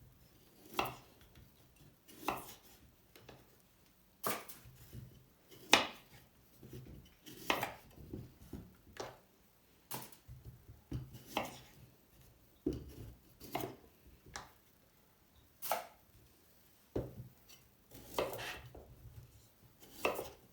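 Knife chopping food on a cutting board: single slow, unhurried cuts at irregular intervals, about one a second.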